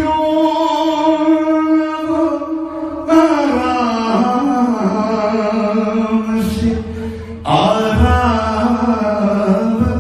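A man singing a manqabat (Urdu devotional song) into a microphone: one long held note, then a slow line that bends and glides in pitch, and a new phrase starting after a short breath near the end.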